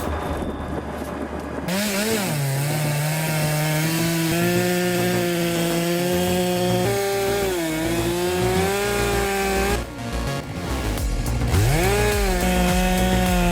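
Chainsaw cutting wood. The engine holds a steady high note under load with a few short dips in pitch, drops away about ten seconds in, then revs back up near the end.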